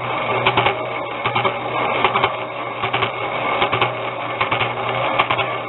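Change-gear train of a 9x20 metal lathe running under power, with a steady hum and irregular, rapid clicking and clattering of gear teeth. The noise comes from misaligned gears and parts jumping around, which the owner suspects is at the reverse tumbler.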